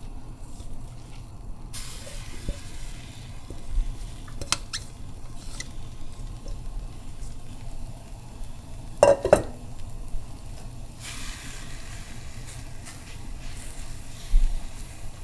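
Finely chopped fresh herbs sizzling in a dry stainless steel frying pan as they are stirred with a spatula, the excess water cooking off before any oil goes in. The sizzle comes up about two seconds in and grows stronger near the end, with scattered scraping clicks, a quick cluster of sharp spatula knocks on the metal about nine seconds in, and one more knock near the end.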